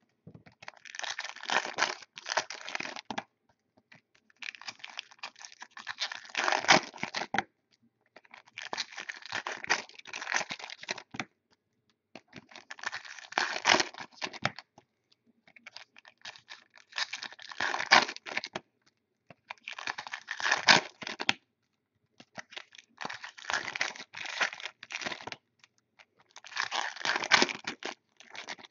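Foil trading-card packs of 2014 Topps Chrome football being torn open and crinkled by hand, one after another: about eight bursts of crackling tearing separated by short pauses.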